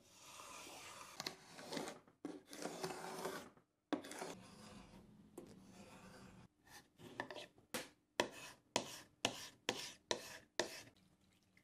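Hand sanding of oak: an abrasive pad scrubbing against the wood in long continuous passes, then short quick strokes about two a second in the second half.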